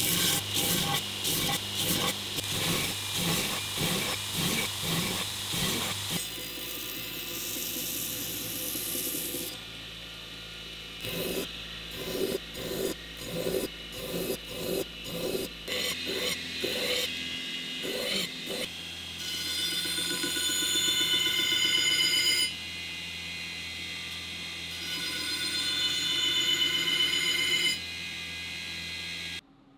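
Belt grinder running while a cast aluminium knife blade is pressed against the abrasive belt. The sound comes in several short passes that change suddenly: in some the grinding comes in rhythmic strokes about two a second, in others it is a steady grind with a high whine.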